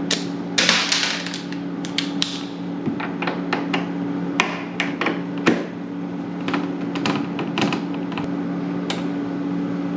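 Irregular metal clicks and clinks of a 5/16-inch nut driver working the screws out of a refrigerator's top hinge, over a steady low hum.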